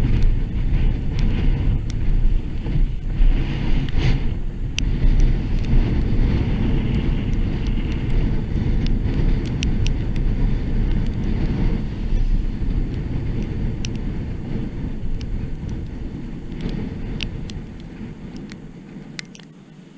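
Wind rumbling on the microphone and tyre noise on a wet road from a moving vehicle, with scattered small ticks. The noise dies down over the last few seconds.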